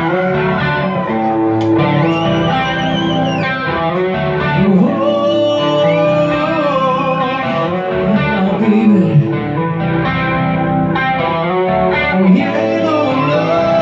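Live rock band playing: an electric guitar plays sustained lead lines with string bends and vibrato over bass guitar and drums.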